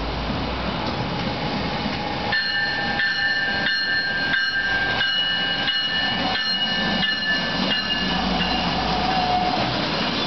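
NJ Transit River Line diesel light-rail train (a Stadler GTW railcar) passing close by. Its electronic warning bell rings in an even repeating pattern, about one and a half strikes a second, from about two seconds in until near the end. The railcar's diesel rumble grows louder as it goes by.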